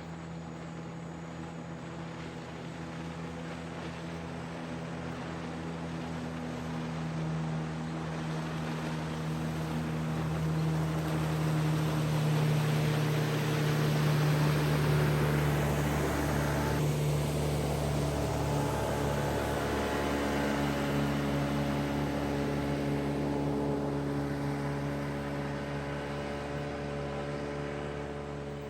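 Small boat motor running steadily as the boat travels up the river, its drone swelling to loudest about halfway through and easing off toward the end.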